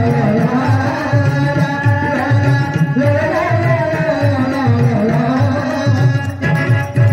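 A woman singing with long, gliding held notes, accompanied by tabla playing a steady beat of about two strokes a second.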